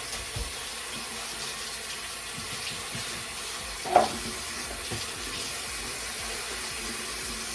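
Tap water running steadily into a sink as the dryer's lint filter is rinsed under it, with a brief knock about four seconds in.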